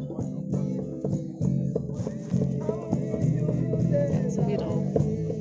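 Live band music led by a guitar: quick plucked notes over a steady low bass line.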